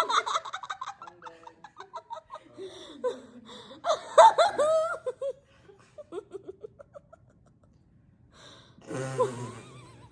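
People laughing in several bursts with pauses between: a run of quick repeated laughs at the start, a louder burst about four seconds in, and a last short burst near the end.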